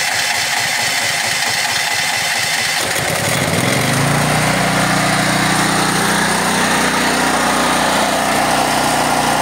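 Firman H07552 portable generator's single-cylinder engine running on natural gas with the choke on, just after starting. It runs unevenly for the first three seconds or so, then settles into a steady run.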